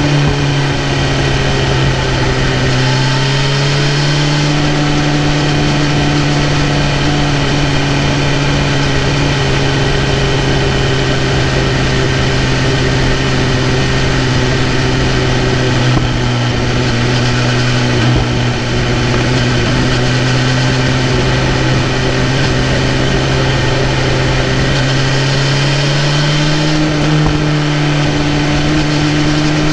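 BMW S1000RR's inline-four engine running at fairly steady revs under way; the revs ease slightly about four seconds in and rise again near the end.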